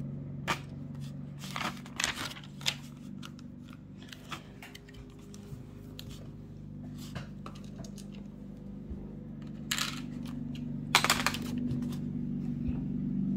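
Plastic Lego bricks clicking and clattering as pieces are handled and pressed onto a model, in scattered sharp clicks with a louder rattle of pieces about ten seconds in. A steady low hum runs underneath.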